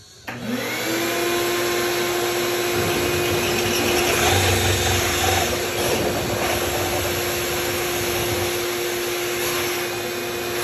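Milwaukee cordless drill spinning up and then running at a steady speed, cutting a hole through the wall, with a grinding cutting noise over the motor's whine.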